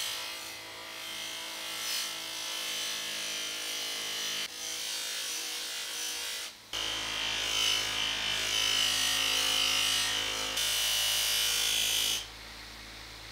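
Bench grinder with an abrasive wheel spinning while a steel guillotine blade is pressed against it: a steady motor whine under a loud, hissing scrape of metal on the wheel, jumping abruptly in level a few times. Near the end the scraping stops and the motor runs on alone, quieter.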